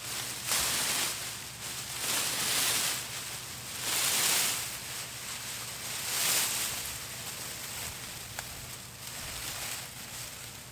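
Black plastic mulch film and dry plant stalks rustling as they are pulled up off a planting row, in several surges that ease off in the last few seconds.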